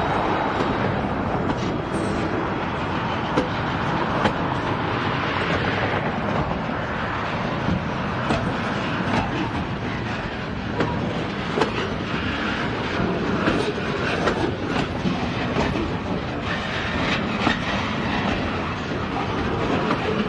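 Freight cars of a high-and-wide steel plate train, bulkhead flatcars and flatcars, rolling past: a steady rumble of steel wheels on rail, with irregular sharp clicks and clacks.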